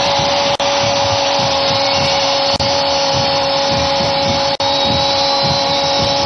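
Steady stadium crowd noise with a held horn-like drone over it, loud and unchanging, dropping out for an instant about every two seconds.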